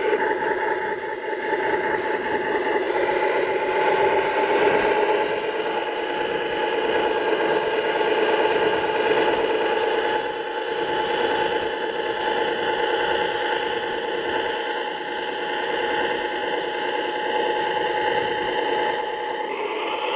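A radio-controlled scale Jeep Wrangler JK crawler working slowly through sand, giving a steady whine made of several pitches. The lowest pitch rises a little a few seconds in and shifts again near the end.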